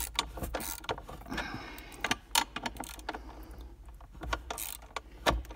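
Socket ratchet clicking in irregular runs, with small metallic knocks, as a 10 mm copper pinch nut on the battery hold-down is worked loose.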